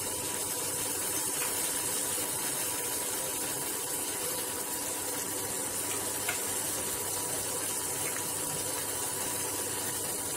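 Onion-tomato masala with freshly added ginger-garlic paste sizzling steadily in oil in a kadai, over the steady hum of the induction cooktop. A few faint ticks.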